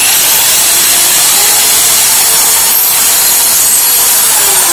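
Corded electric drill running at speed with a wood bit boring through particle board: a steady, loud, hissing noise, with a faint high whistle that starts to fall near the end.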